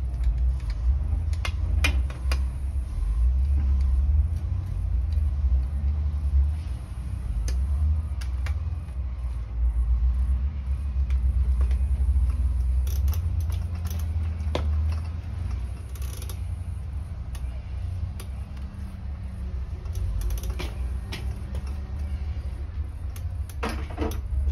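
Scattered clicks, taps and creaks of hand tools and lever clamps as controls are fitted to a bicycle's handlebars, coming at irregular moments over a steady low rumble.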